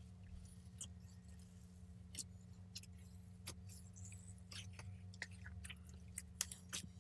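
Faint sticky crackling and clicking of clear liquid-glass slime packed with foil-paper flakes as it is stretched and pulled up, the small clicks coming more often in the second half, over a steady low hum.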